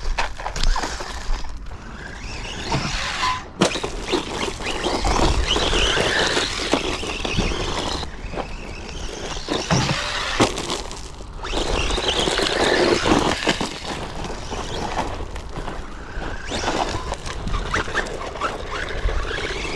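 ZD Racing MT16, a 1/16-scale 3S brushless RC monster truck, driving hard over rough rocky ground: the motor whines, rising and falling with the throttle, over tyre scrabble on stones, with scattered sharp knocks.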